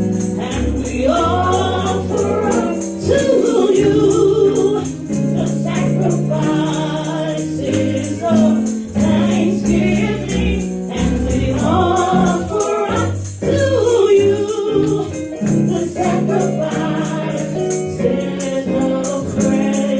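Gospel-style worship music: a choir or group of singers with a band playing sustained bass and keyboard notes, and a steady shaken percussion rhythm.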